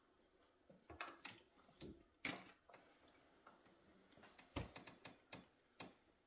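Quiet, irregular clicks and taps, about ten in all, coming in two loose clusters.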